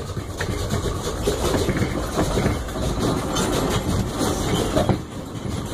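Earthquake simulator's re-creation of the 1906 San Francisco earthquake: a deep continuous rumble with rattling and clattering as the room shakes.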